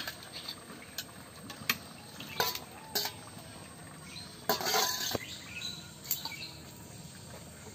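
A metal spoon clinks and scrapes against a steel bowl and a wok as pieces of fried fish are tipped into a simmering curry and stirred. It comes as a string of separate sharp clinks, with a louder, longer clatter about four and a half seconds in.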